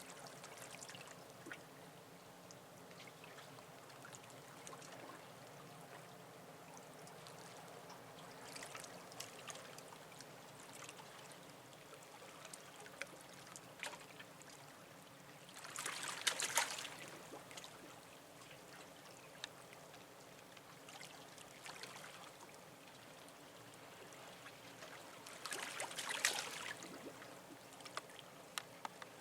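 Seawater lapping and splashing at the harbour edge, with two louder surges of waves about sixteen and twenty-six seconds in.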